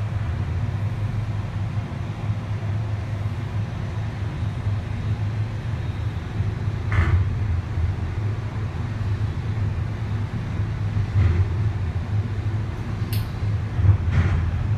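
Steady low hum heard inside an enclosed Ferris wheel gondola as the wheel turns. A few short knocks and creaks come about halfway through and twice near the end, as the gondola passes the boarding platform.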